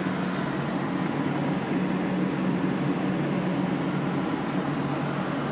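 Ford Focus 1.0 EcoBoost three-cylinder petrol engine idling steadily while still cold, heard from inside the cabin, with the even hiss of the heater fan blowing over it.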